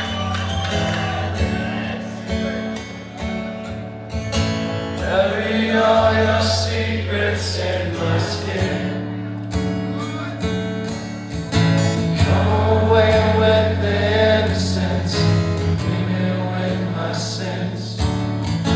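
A song with acoustic guitar, bass and singing, played back through Dayton Audio Classic T65 floorstanding tower speakers with no subwoofer.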